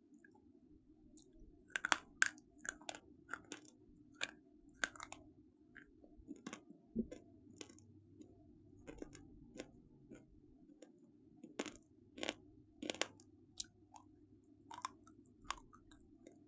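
Close-up crunching of something brittle: a series of sharp, irregular crunches and crackles, busiest about two seconds in and again near the thirteen-second mark, over a faint steady hum.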